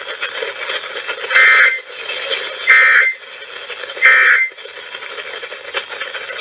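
Emergency Alert System end-of-message code: three short bursts of warbling data tones, a little over a second apart, closing the monthly test. Played over an FM radio, with steady hiss between the bursts.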